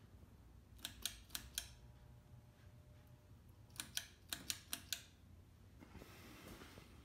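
Pull-chain switch of a Hunter 1886 ceiling fan clicking as the chain is pulled. There are two quick runs of sharp clicks about three seconds apart, with a faint steady hum between them as the fan starts up.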